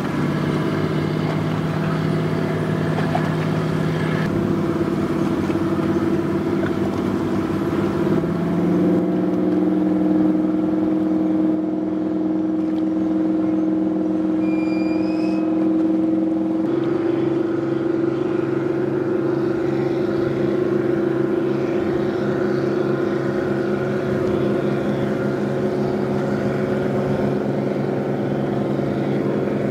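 A boat's engine runs with a steady drone, heard from aboard. Its pitch steps a little a few times.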